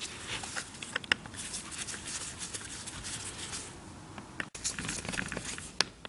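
Screwdriver working the small cover screws on a Tillotson carburetor: scratchy scraping with scattered small metal clicks.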